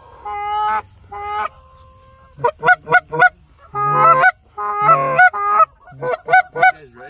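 Goose honking: a loud run of short honks and quick clucks, some single and some in rapid runs of three or four notes, with a brief steadier held note about two seconds in.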